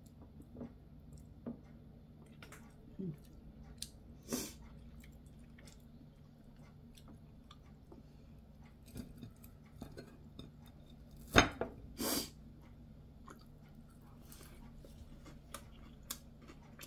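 Quiet eating sounds: chewing, with scattered small clicks of chopsticks against dishes and a couple of short breathy sounds, over a steady low hum. About eleven seconds in there is a single sharp click, the loudest sound.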